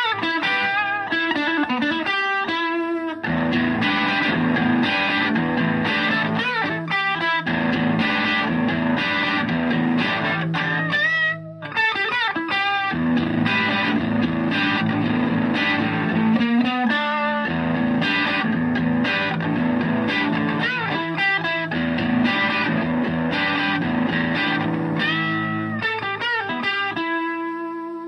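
Electric guitar, a Stratocaster, played through a treble booster pedal into a Fender Twin-style amp: phrases of single notes and chords with string bends. It ends on a chord left ringing and starting to fade.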